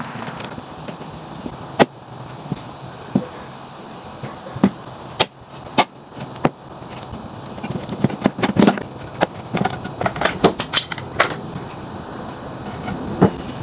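Irregular sharp knocks and clicks of wood pieces and tools being handled, scattered at first and coming thick and quick about eight to eleven seconds in.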